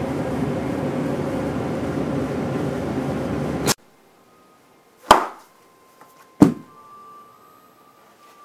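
A steady background hum that cuts off abruptly about four seconds in, then a quiet stretch broken by two sharp thumps about a second and a half apart.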